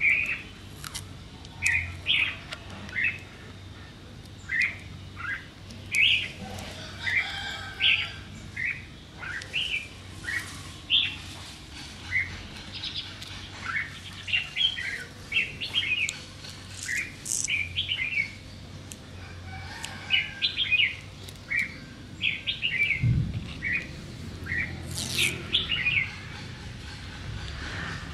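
Small birds chirping: many short, high notes in irregular quick runs, with a brief low rumble about three-quarters of the way through.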